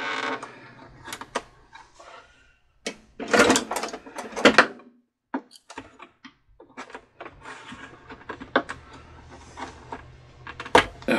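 Handling noise on the hollow plastic base of a Cricut Expression cutting machine: needle-nose pliers clicking and scraping as the rubber foot caps are pried out of their holes. Scattered clicks throughout, with a couple of louder knocks and scrapes of the plastic about three and a half seconds in.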